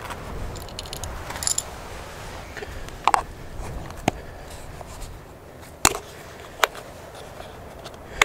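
Metal utensils clinking against metal cookware: several sharp separate clinks, a second or more apart, with a double clink about three seconds in, over a steady low hiss.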